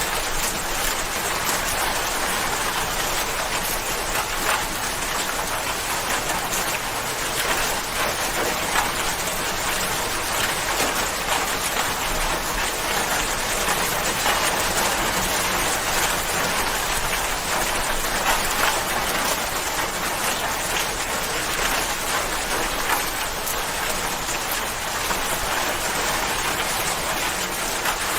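Steady rain falling on a surface, an even patter of many small drops.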